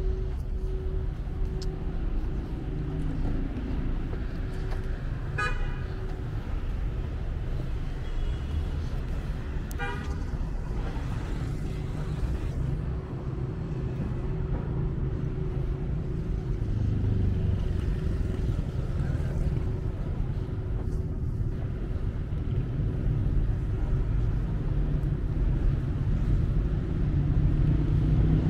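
Street traffic with a steady low rumble of passing cars, and two short car-horn toots about five and ten seconds in.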